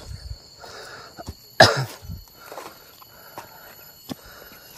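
Footsteps crunching through dry leaf litter at a walking pace, under a steady high insect drone. About a second and a half in, a person coughs once, loudly.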